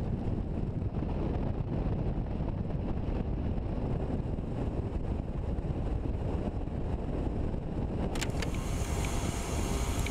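Steady wind rush on the microphone over the low rumble of a motorcycle's engine and tyres while riding along a road.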